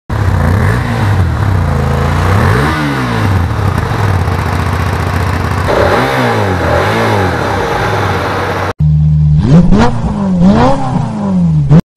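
Hyosung GT250R V-twin engine idling in neutral on its stock exhaust, blipped up and back down two or three times. About three-quarters of the way in, the sound cuts abruptly to a different, louder motorcycle engine revved sharply several times, ending suddenly.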